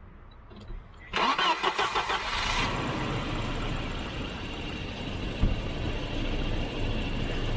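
Volvo 740's B230F four-cylinder engine cranked by the starter and firing up about a second in, catching quickly, then settling into a steady idle, with one brief thump about five seconds in.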